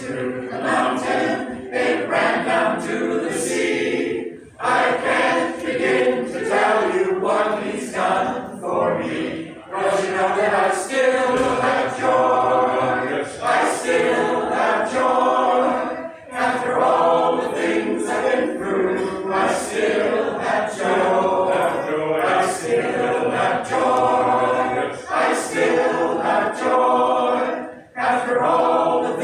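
Vocal group singing a gospel song in harmony, in long phrases with brief breaks between them.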